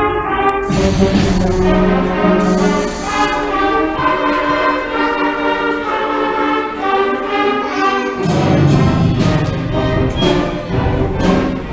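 A middle school concert band playing a holiday piece live: brass and woodwinds hold sustained chords over low brass, with two cymbal splashes about a second and three seconds in.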